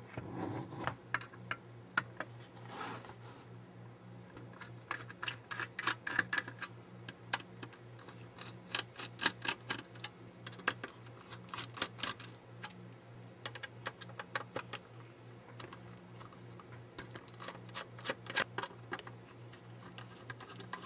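Precision screwdriver working tiny screws out of a camera's sheet-metal frame: clusters of light, irregular metallic ticks and clicks as the tip seats and turns, over a low steady hum.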